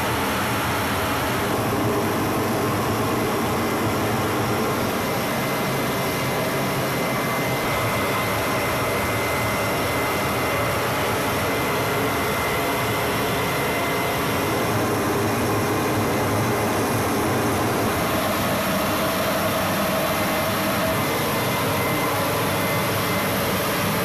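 Steady aircraft engine noise on a flight line: an even, unbroken roar with a thin, steady high whine above it.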